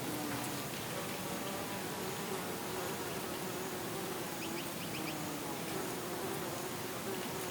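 A bee buzzing, a steady hum that wavers a little in pitch, over a soft hiss of outdoor air. A few short high bird chirps come about halfway through.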